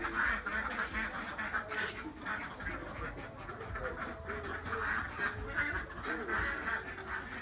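A large flock of domestic ducks quacking continuously, many short calls overlapping into a steady chatter.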